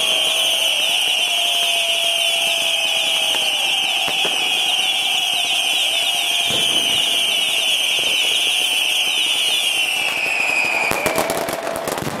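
Whistling firework giving off a continuous shrill screech made of rapid chirps, slowly sinking in pitch, which stops about eleven seconds in. A quick run of sharp firecracker cracks follows near the end.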